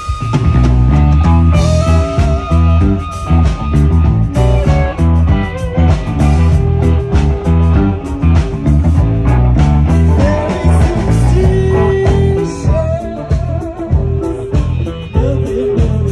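Live band playing blues-rock: electric guitars, bass and drums with a steady beat, and a guitar playing bending lead lines on top.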